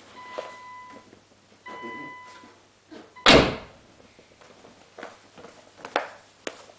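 Two short electronic beeps, each under a second long, then a car door shut with a single heavy thunk a little over three seconds in, followed by a few light clicks.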